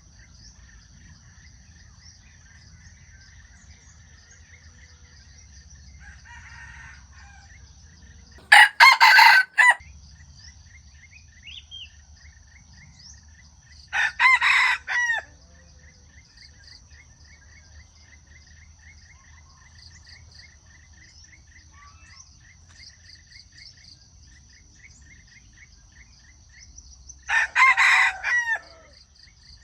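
Wild junglefowl rooster crowing three times, each crow short and clipped at about a second long, the second about five seconds after the first and the third near the end. Insects chirr steadily with rapid ticking in between.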